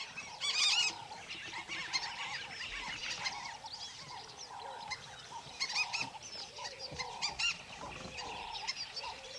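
A chorus of wild birds calling, many short repeated chirping notes overlapping, with a few louder, harsher calls standing out, the loudest about half a second in.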